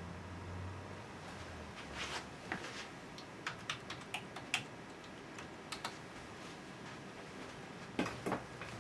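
Computer keyboard being typed on: light, scattered key presses, a few stronger strikes near the end, as a login password is entered at a Windows Server login screen.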